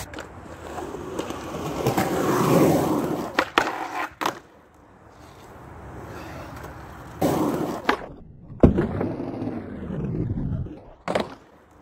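Skateboard wheels rolling on concrete with several sharp clacks of the board, then the metal truck scraping along the edge of a concrete ledge in a backside crooked grind, ending in a hard clack of the board landing near the end.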